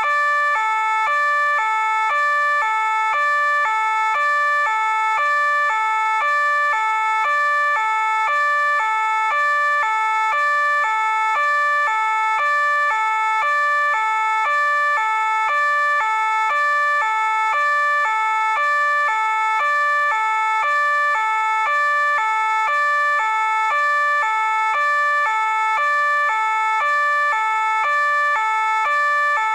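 French police two-tone siren sounding continuously, switching back and forth between a higher and a lower note at an even pace.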